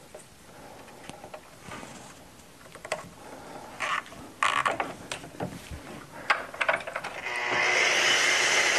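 A few clicks and knocks as the Festool track saw is handled on its aluminium guide rail, then, about seven seconds in, the saw's motor spins up and runs steadily, ready to cut plywood.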